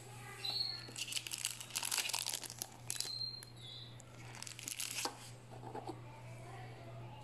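Crisp baked cookies rustling and clattering against each other in a glass bowl as a hand picks through them, in two spells of crackly scraping, the longer one near the start and a shorter one about two-thirds of the way through.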